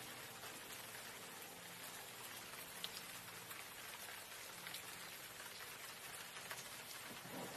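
Steady rain falling, a faint even hiss with scattered small drop ticks, over a faint low drone.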